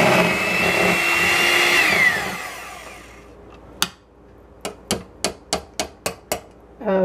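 Electric hand mixer running at low speed with a steady high whine as it beats pudding in a stainless steel bowl; about two seconds in it is switched off and the whine falls away as the motor spins down. Then a quick series of sharp metallic clinks, about eight, as the metal beaters knock against the steel bowl.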